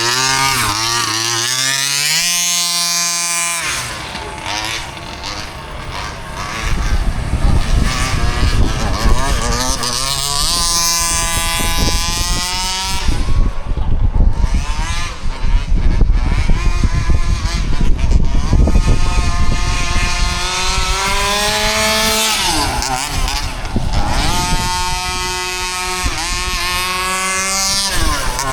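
HPI Baja 5B RC buggy's small two-stroke engine revving, its pitch climbing and dropping back several times as the throttle is worked.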